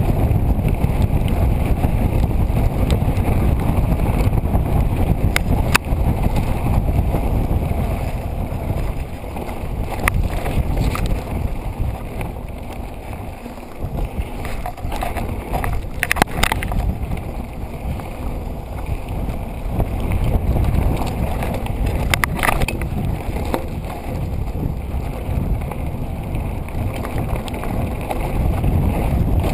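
Mountain bike descending a loose gravel and dirt trail at speed: wind buffeting the action camera's microphone over the rumble of the tyres on the stones, with a few sharp knocks as the bike hits bumps.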